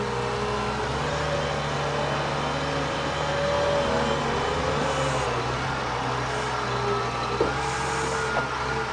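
Liebherr wheel loader's diesel engine running steadily as the machine drives with a heavy boulder raised in its bucket, with a wavering whine above the engine hum. A short knock about three-quarters of the way through.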